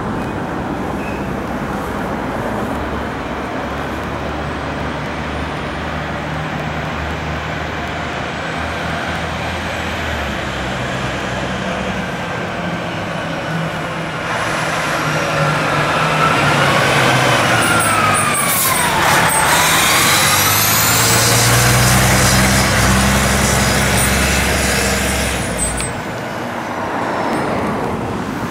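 Road traffic noise, then a 2007 Spartan Gladiator / Smeal fire engine responding with its siren wailing as its engine comes up and past. The sound grows louder about halfway in and the siren swoops down and back up as the truck goes by, before the sound eases near the end.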